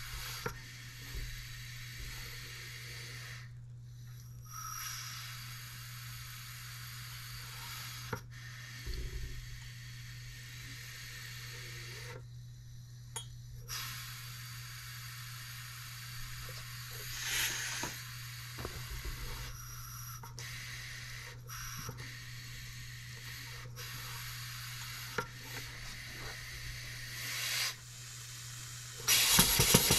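Compressed air hissing steadily through a Stuart beam engine model's valve while its flywheel is turned by hand for timing adjustment, with small clicks and rubs of the moving parts. About a second before the end the engine starts running on air, with loud, rapid, even exhaust beats.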